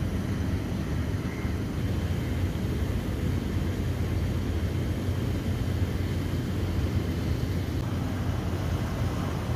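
Steady low mechanical rumble with a faint hum, like large engines or heavy machinery running continuously.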